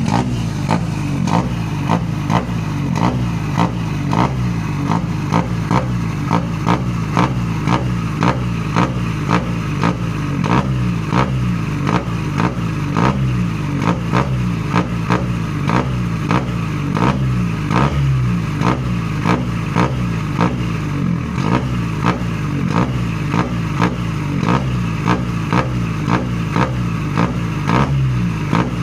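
Vehicle engine running through a loud, custom-built "blar blar" exhaust. It keeps up a steady low rumble, punctuated by sharp pulses about twice a second.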